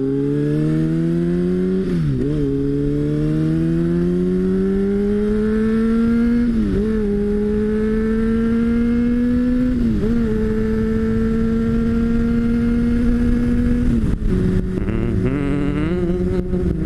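Honda CBR sport bike's inline-four engine accelerating through the gears: the note climbs, dips sharply at each of three upshifts, then holds steady before settling to a lower note near the end as the throttle eases. A steady wind rush sits underneath.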